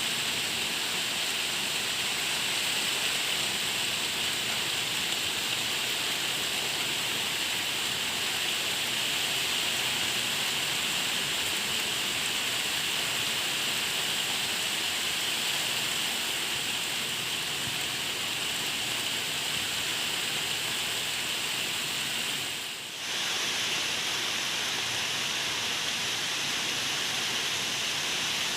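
Steady rain, an even hiss, with a brief dip in level about three-quarters of the way through.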